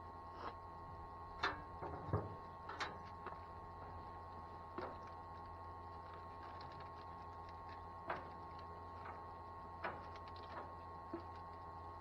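Faint steady electrical-sounding hum with a few scattered sharp knocks and clicks, the strongest three close together in the first three seconds.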